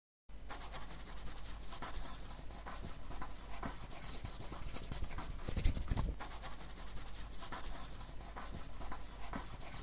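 Felt-tip marker scratching across a writing surface in a continuous run of quick, irregular strokes, starting just after the beginning.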